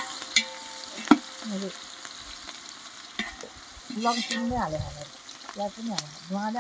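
Onion and garlic frying in oil in a cooking pot while being stirred, with a steady sizzle. The spoon knocks against the pot twice in the first second or so.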